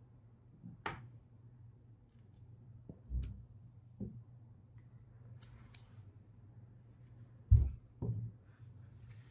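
Plastic and metal parts of compound crossbows being handled: scattered clicks and knocks as the stocks and limbs are moved and set down, with a heavier thump about seven and a half seconds in.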